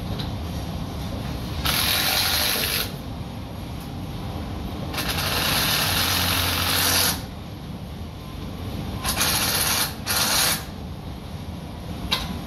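Handheld power drill run in four bursts of one to two seconds each, the last two close together, with a short blip near the end, as framing is fixed to the soffit overhead. A steady low rumble of site background underneath.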